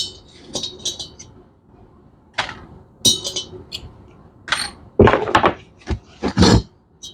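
Metal parts of a motorcycle cylinder head and its valves clinking and knocking as they are handled on a workbench: a scatter of short metallic clicks with a bright ring, then a few heavier thuds in the second half.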